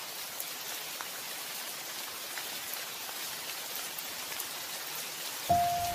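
Steady rain falling, an even hiss with scattered faint drop ticks. A sustained musical note comes in about half a second before the end.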